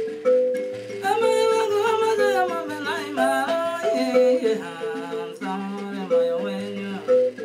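Mbira dzavadzimu in a calabash resonator playing a repeating pattern of plucked metal-key notes over low bass keys, with a woman singing along from about a second in, her voice gliding and wavering.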